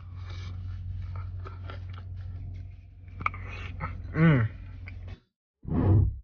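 Close-up eating sounds: a plastic spoon clicking against teeth, with chewing and lip smacks over a steady low hum inside a car. About four seconds in comes a loud, falling "mmm" of enjoyment, and near the end, after a brief silence, a short tone as the TikTok end screen appears.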